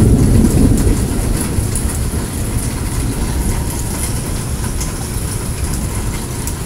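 Rolling thunder: a long, low rumble that slowly fades.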